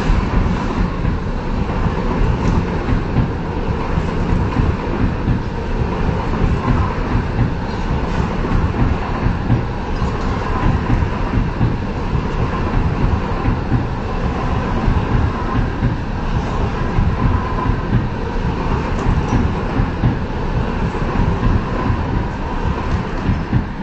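Indian Railways passenger coaches rolling past close by: a steady rumble and rapid clatter of wheels on the rails, with a faint steady whine over it. The sound drops at the very end as the last coach clears.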